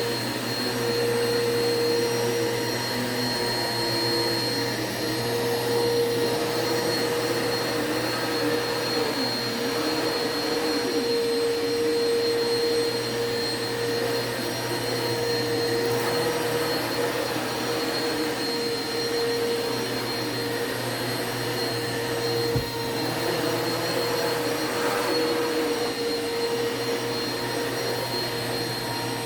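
Vacuum cleaner running steadily on carpet, a constant motor whine over rushing air, with one brief knock about three quarters of the way through.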